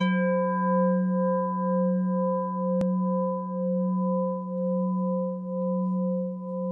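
A singing bowl struck once, its bright overtones fading quickly while a deep hum and several higher tones ring on with a slow wavering pulse. A single sharp click cuts in about three seconds in.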